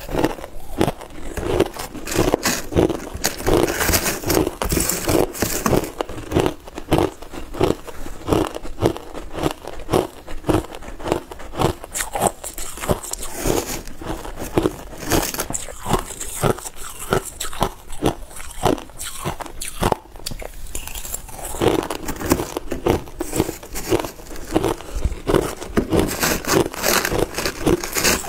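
Crushed ice being bitten and chewed, crisp crunches following one another several times a second, with a metal spoon scooping through crushed ice in a clear plastic tub.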